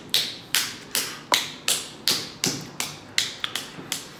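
A steady, even series of sharp taps or snaps, about two and a half a second, each with a short ringing tail.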